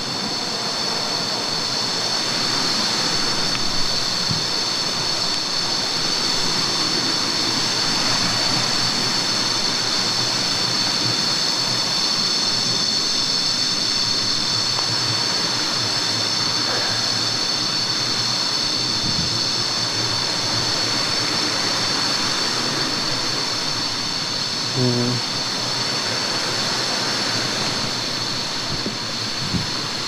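Steady rushing of flowing stream water, with a steady high-pitched drone over it.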